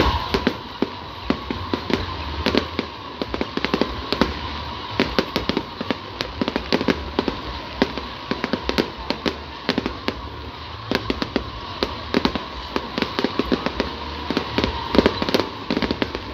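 Fireworks display going off: a rapid, irregular string of sharp bangs and pops, several a second, with a faint steady high tone running underneath.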